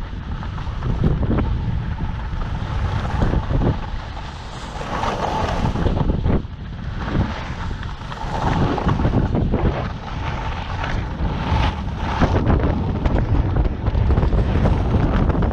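Wind buffeting the microphone of a camera skiing downhill, with the hiss of skis scraping over groomed snow swelling and fading every couple of seconds as the turns are made.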